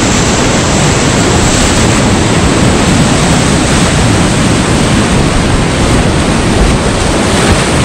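Whitewater rapid of the Upper Klamath River rushing loudly and steadily around a kayak, heard at water level from the boat.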